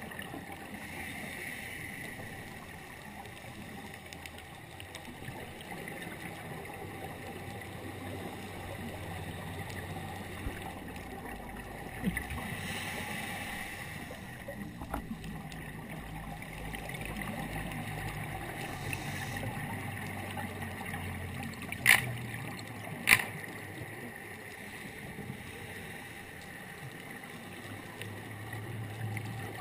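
Underwater ambience on a scuba dive: a steady muffled hiss with gurgling regulator exhaust bubbles swelling now and then. Two sharp clicks a little over a second apart come about two-thirds of the way through.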